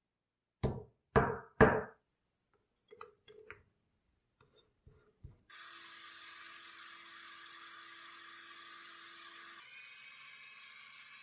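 Three loud wooden knocks in quick succession about a second in, then a few lighter clicks and taps as the wooden handle is fitted into a cordless drill's chuck. From about halfway there is a steady whirring hiss with a held hum: the drill spinning the handle in place of a lathe.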